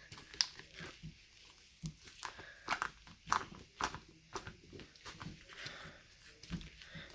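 Green fluffy slime squeezed and stretched by hand, giving faint, irregular squishes and small sticky pops, several a second. It makes little noise.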